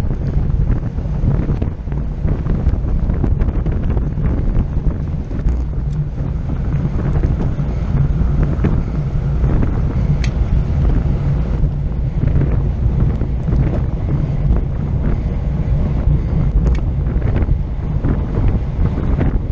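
Heavy wind rumble on the microphone of a camera riding at race speed with a bicycle pack, steady throughout, with occasional faint clicks.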